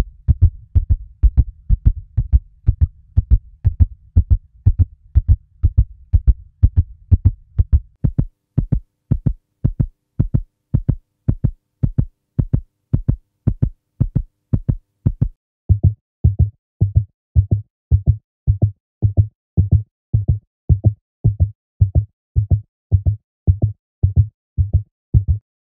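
Fast heartbeat sound effect, an even train of low thumps at about two to three beats a second. It comes in three versions: over a low steady hum at first, a sharper beat from about eight seconds in, and a duller, deeper beat from about sixteen seconds in. The beat stops near the end.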